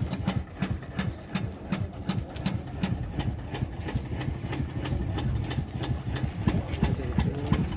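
A small motorcycle engine idling, with irregular clicks over a steady low running sound.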